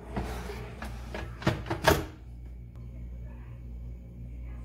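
Air fryer basket sliding into the machine with a scraping rattle, then two sharp knocks as it is pushed shut, about half a second apart.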